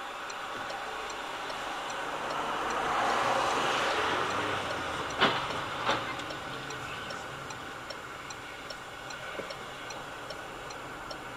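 A car driving on a wet road, heard from inside: a steady hiss of tyres on the wet surface, with a light ticking about twice a second and two sharp clicks a little past the middle.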